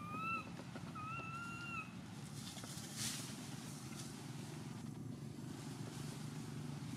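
Two short, slightly rising coo calls from a macaque near the start, each under a second, with a brief rustle of dry leaves about three seconds in, over a steady low rumble.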